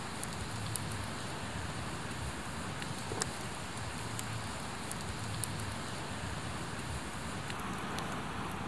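Wood campfire burning with a steady hiss and a few sharp crackles from the burning logs.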